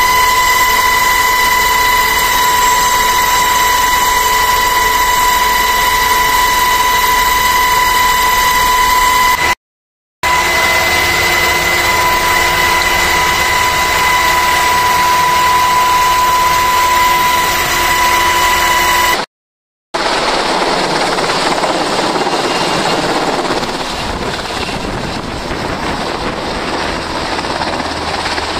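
Black Hawk helicopter heard from inside its open-door cabin: steady engine and rotor noise under a strong high-pitched whine, cutting out briefly twice. About two-thirds of the way in it is heard from outside instead, hovering low with a rough rushing rotor-wash noise.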